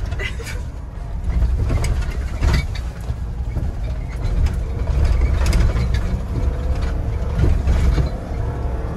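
Ford Bronco driving slowly over a rough dirt trail, heard from inside the cab: a steady low rumble of engine and tyres with scattered knocks and rattles as the truck bounces over ruts and rocks.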